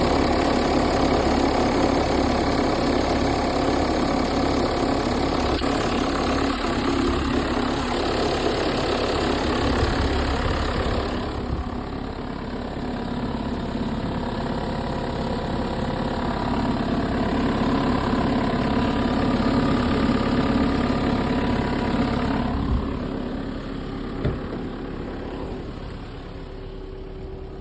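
Car engine idling steadily, its idle held at about 1000 rpm, which the owner reports does not drop. The sound gets quieter about eleven seconds in, and two short sharp clicks come near the end.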